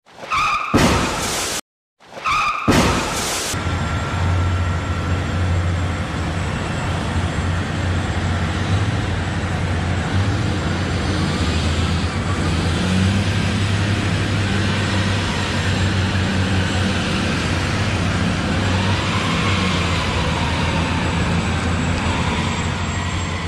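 A heavy vehicle's engine running steadily, a low drone whose pitch shifts up and down in steps. It follows two short loud bursts in the first few seconds.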